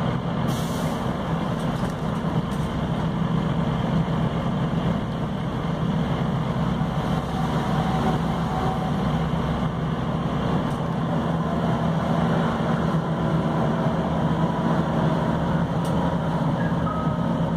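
Scania CN270UB OmniCity city bus heard from inside the passenger cabin while under way: its five-cylinder diesel engine runs steadily over road and cabin rumble. A brief hiss comes about half a second in.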